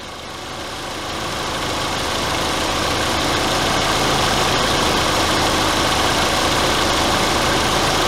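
The 1.8-litre turbo four-cylinder engine of a 2004 Volkswagen Passat idling with the A/C compressor engaged, a steady running sound with a broad hiss. It grows louder over the first three seconds, then holds steady.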